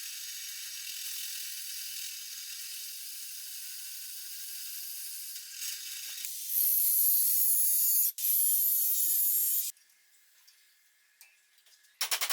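Angle grinder cutting into wood: a steady cutting noise with no clear pitch. About two-thirds in it turns louder and higher for a few seconds, then stops suddenly.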